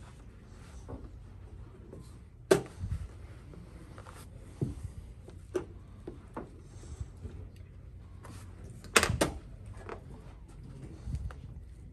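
Wooden chess pieces set down on the board and the chess clock's buttons pressed: a series of sharp clacks, loudest about a third of the way in and as a close pair about three quarters through, over a low room hum.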